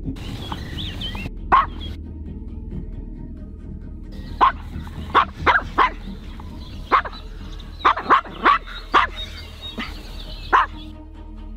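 Maltese dog barking, about a dozen short barks, one early and then an irregular run through the second half, directed at a larger dog: the small dog's reactive aggression toward big dogs.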